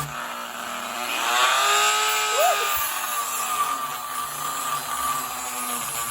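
Handheld rotary tool with a small cutting wheel running at high speed and cutting into a wooden block, its whine rising and then falling in pitch as the wheel is pressed into the wood.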